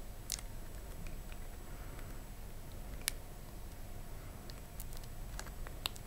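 Fingers with long nails squeezing a silicone pimple-popping toy, giving a scattered handful of small sharp clicks and soft squishes, a few more of them near the end, over a steady low hum.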